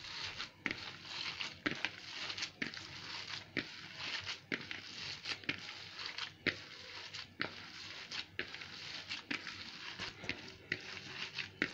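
Hands kneading raw minced meat mixed with parsley, grated onion and harissa in a plastic bowl: soft wet squishes repeating about once a second.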